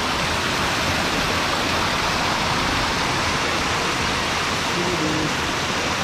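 Small waterfall rushing steadily over and between rock boulders into a rocky stream.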